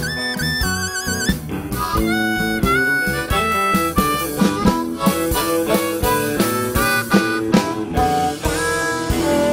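Blues harmonica playing a fast lead line, with some held notes bent into a wavering vibrato, over a live band with drums and guitar.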